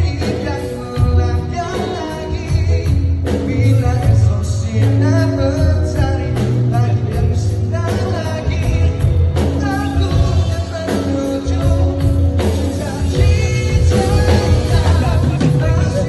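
Live band playing a pop-rock song: a male lead vocal over electric guitars, electric bass and drum kit, at a steady, loud level.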